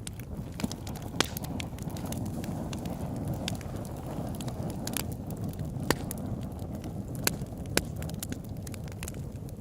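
Campfire crackling: irregular sharp pops and snaps of burning wood, about half a dozen standing out, over a steady low rush.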